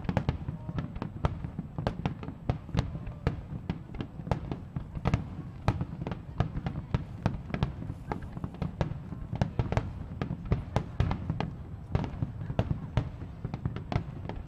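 Fireworks bursting: a continuous run of sharp cracks and pops, several a second, over a low rolling rumble.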